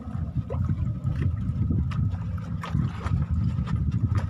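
Wind buffeting the microphone aboard a small fishing boat at sea, a choppy low rumble, with a few light knocks and clicks scattered through it.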